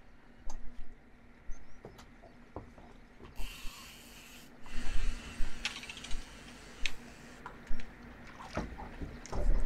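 Fishing rod and reel handled on a small boat: scattered clicks and knocks, a brief hiss about three and a half seconds in, and a faint steady hum in the background.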